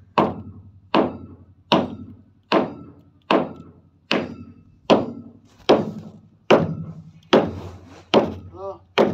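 Steady rhythmic pounding: a sharp blow about every 0.8 seconds, about a dozen in all, each followed by a short low ring.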